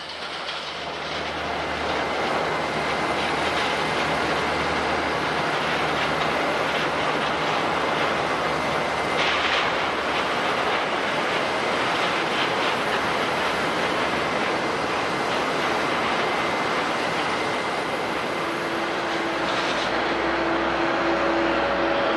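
Jet airliner engines running, a steady rush of noise that fades in at the start. A faint high whine rides on it through the first half, and a low hum joins near the end.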